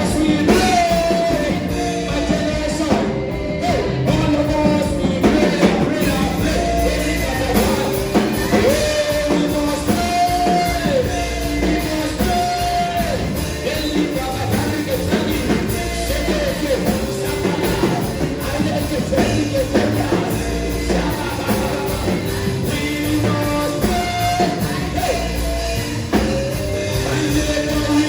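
Worship music: voices singing a held melody over a band with a steady bass line.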